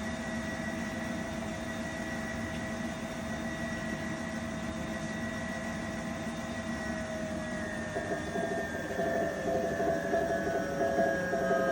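Unimac UYT025 washer-extractor coasting down from spin: a steady whine that slowly starts to fall in pitch. About eight seconds in, a louder, warbling whine joins it and falls as well. This is the weird noise the machine makes as the drum slows.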